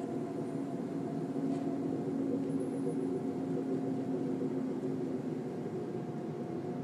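A steady, low droning hum with several held tones and no breaks: the kind of 'strange sky noise' heard in amateur recordings of unexplained humming from the sky.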